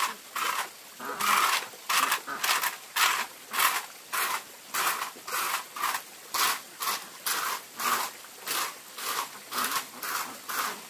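A rake scraping over dry wood chips and dirt in regular strokes, about two a second.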